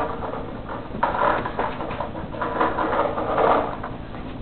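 Close rustling, shuffling and small clicks and rattles of a person moving about on the floor mat in front of the camera. The noise grows busier about a second in.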